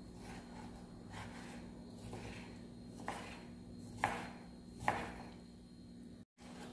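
Kitchen knife cutting raw chicken breast into pieces on a wooden cutting board: faint slicing strokes, with three sharper knocks of the blade on the board in the second half.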